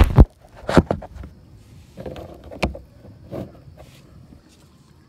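Several short knocks and thumps in a kayak as the angler handles a freshly caught redfish, the loudest in the first second, then fainter ones, settling into a faint hiss.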